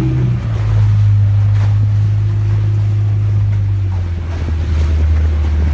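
Small boat's engine running steadily under way, its note dropping lower about four seconds in, with wind on the microphone and the rush of choppy water.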